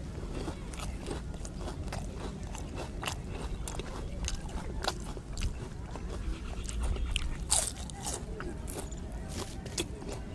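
A person biting and chewing crisp fried samosa close to a clip-on mic: many small, irregular crunches and crackles over a steady low rumble.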